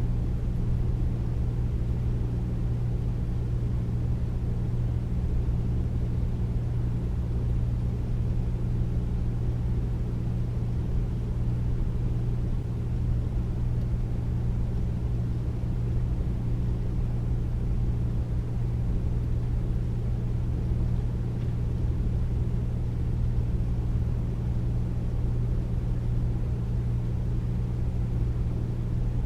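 Air conditioner running steadily without cooling: a deep, even hum with a low drone and soft airflow noise, unchanging throughout.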